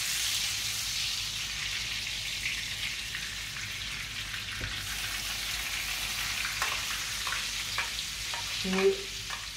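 Butter sizzling steadily in a frying pan with gnocchi just added. Near the end a spoon clicks against the pan a few times, and a voice is briefly heard just before the end.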